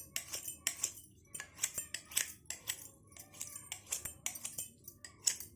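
Steel knife blade drawn back and forth over the bottom rim of an upturned cup to sharpen it: a steady series of short scraping strokes, about three a second.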